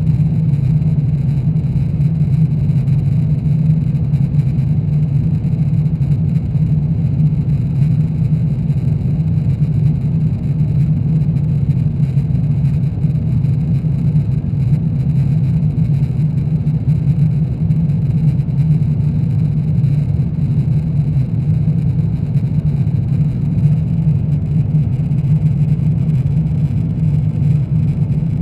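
Steady low drone of airflow and engines inside the cabin of an Airbus A350-900 airliner in flight, unchanging throughout.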